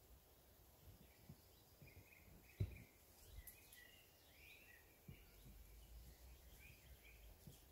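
Near silence outdoors with faint, scattered bird chirps. A single low thump about two and a half seconds in, and a faint low rumble from about five seconds in.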